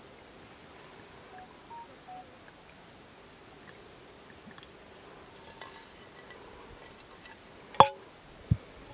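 Earthenware pot sounds: a faint trickle as olive oil is poured into the clay güveç, then near the end a sharp clink of the clay pot being knocked, ringing briefly, followed by a dull thump as it is handled.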